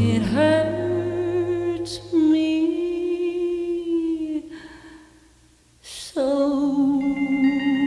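Slow ballad music: a voice holds long sung notes over soft accompaniment, fading almost to silence about four and a half seconds in. About six seconds in a new held note starts with organ-like keyboard chords.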